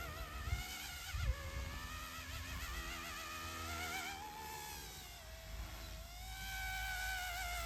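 Small direct-drive electric RC helicopter in flight, its high motor and rotor whine wavering up and down in pitch as it manoeuvres. A short thump stands out just over a second in.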